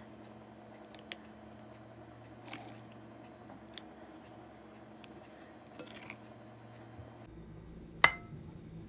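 Plastic scoop knocking and scraping against a mixing bowl and plastic tub while thick ice cream mixture is scooped. The knocks are a few faint, scattered ones, then one sharp, loud knock near the end.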